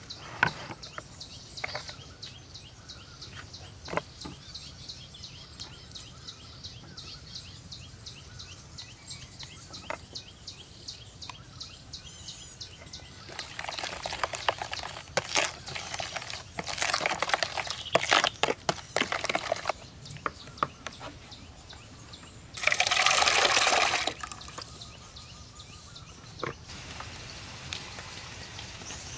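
A metal spoon stirring wet chopped chilies in a plastic bowl, with lime juice squeezed in: soft wet clicks and scrapes at first, then louder bouts of stirring about halfway through. A dense burst of noise lasting about a second and a half comes about 23 seconds in.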